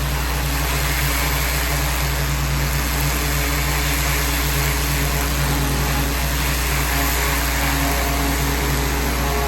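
Pressure washer running steadily: a low motor hum under the constant hiss of the water spray on the cladding.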